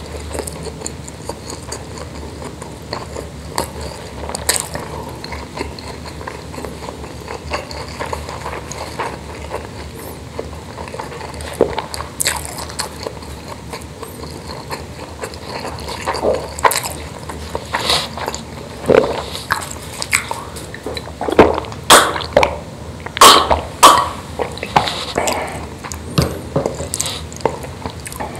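Close-miked eating sounds: wet chewing and mouth smacks of rice and spicy meatballs in sauce, eaten by hand. They come every so often at first and grow louder and busier past the middle.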